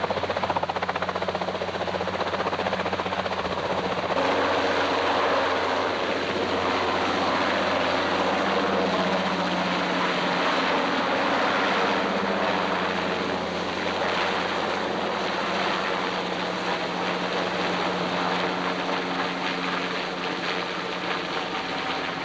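Westland Wessex helicopter lifting off and climbing away: a steady turbine and rotor drone, loudest a few seconds in and slightly fainter near the end as it flies off.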